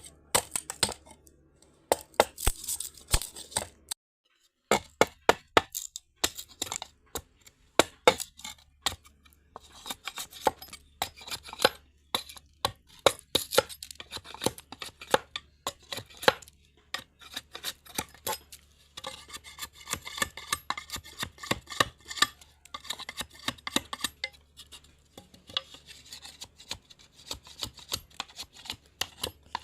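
A blade chopping and cutting bamboo in sharp strikes, some single and some in quick runs, with a short silent break about four seconds in. The strokes come denser and closer together past the middle.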